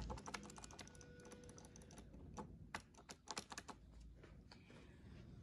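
Faint, irregular light clicks and ticks, like tapping, with a faint steady tone lasting about a second near the start.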